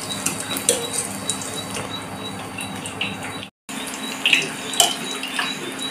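Batter-coated bread pakoras deep-frying in hot oil, sizzling steadily with scattered small crackles and pops. The sound cuts out briefly a little past halfway.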